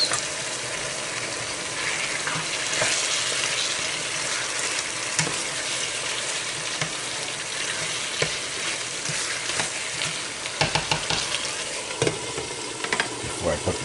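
Chicken sizzling in a frying pan while a spoon stirs it, a steady hiss throughout. Near the end come several sharp clicks and knocks as the spoon strikes the pan and the glass lid is set back on.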